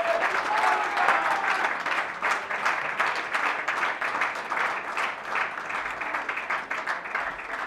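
Audience applauding: many people clapping, slowly fading, with a voice or two calling out in about the first second.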